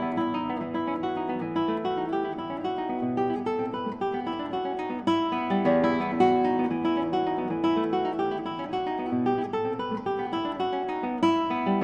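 Instrumental background music of plucked strings, a steady flow of picked notes that ring and fade one after another.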